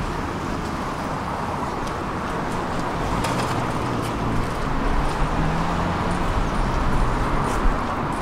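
Street traffic beside a tram standing at the stop: a steady background hum, with a car going by about halfway through.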